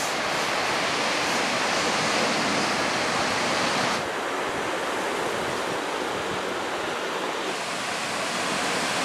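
Ocean surf breaking, a steady rushing roar with some wind in it. The sound shifts slightly about four seconds in and again near the end as the shot changes.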